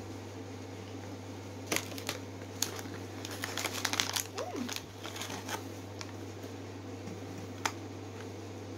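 Plastic snack bag and paper crinkling in a few short rustles with sharp clicks, heaviest between about two and five and a half seconds in, over a steady low hum.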